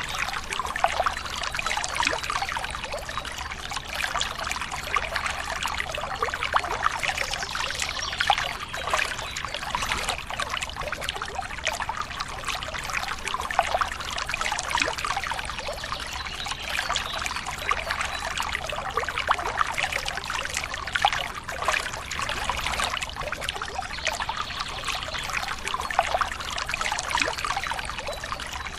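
Water pouring and trickling steadily in a thin stream, with small splashes throughout.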